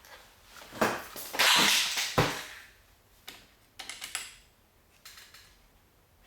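Clicks and clatter from parts being handled, with a noisy scrape or rustle of about a second between two sharp clicks early on, then a few lighter clicks.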